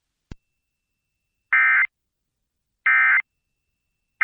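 Emergency Alert System End-of-Message code: short bursts of raspy digital data tones about 1.3 s apart. There are two full bursts, with a third starting at the very end, after a faint click. The repeated 'NNNN' burst marks the end of the alert message.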